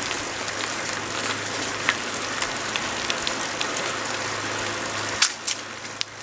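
Bicycle riding along a paved trail, heard from a camera on the moving bike: a steady rushing noise with scattered rattling clicks. It drops a little after a sharp click about five seconds in.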